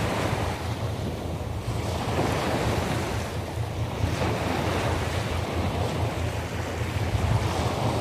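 Sea waves breaking and washing ashore, the surf rising and falling in several surges, over a steady low rumble of wind on the microphone.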